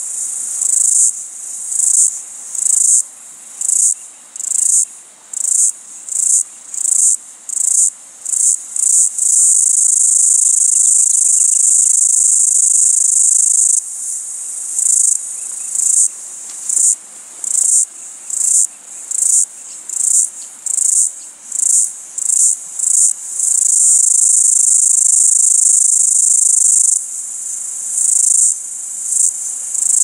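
Cicada calling: a loud, high-pitched song of separate pulses that come faster and faster, then merge into a steady buzz lasting about four seconds. The cycle happens twice, and the pulses start up again near the end.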